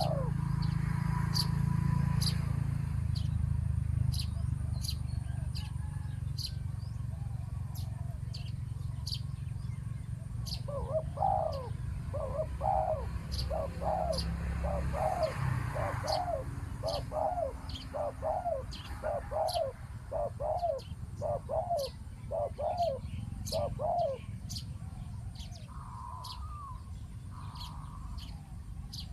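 Spotted doves cooing: a run of about fourteen low, hooting coos, roughly one a second, through the middle of the stretch. Quick sharp ticks sound throughout, and there is a low rumble in the first half.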